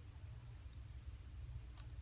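A couple of faint clicks from small repair tools and parts being handled on an iPhone 5c, over a low steady hum.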